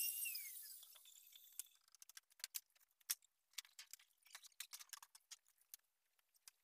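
A high-pitched wavering tone fades out and slides down in pitch within the first second. Then a pencil scratches and taps on a wooden door panel in short, irregular strokes as lines are marked on it.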